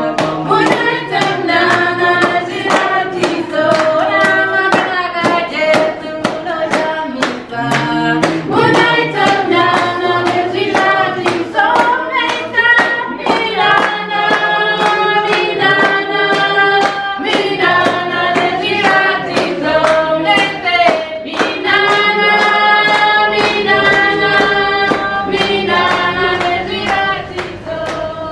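A small group singing together, with hand clapping on a steady beat.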